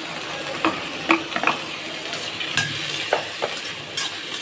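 Tomatoes and onions sizzling in hot oil in an iron kadai while a steel slotted spatula stirs them, scraping and clinking against the pan several times.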